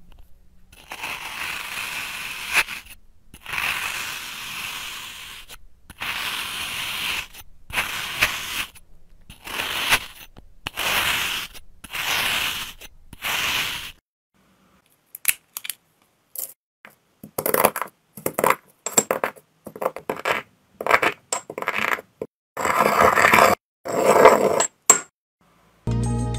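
Sand in a wooden bowl being cut and crushed, a gritty crunch roughly once a second. After a short silence, brittle white flakes are crushed in a ceramic mortar with a pestle: sharp clicks at first, then longer, louder crunching strokes near the end.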